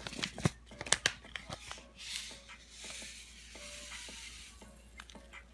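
A few sharp clicks and taps of things being handled, then about three seconds of a soft, hissing rustle: chia seeds poured from a pouch onto a bowl of granola.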